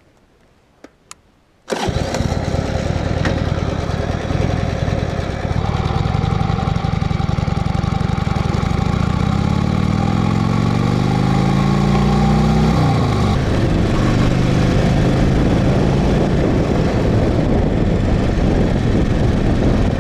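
1985 Harley-Davidson Sportster 1000 Ironhead's air-cooled V-twin firing up abruptly about two seconds in and running loud. It then revs up with rising pitch as the bike pulls away, drops sharply at a gear change a little after halfway, and keeps pulling under power.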